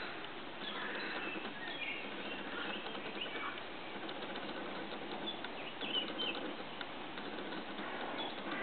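Outdoor ambience: birds chirping now and then over a steady rushing noise.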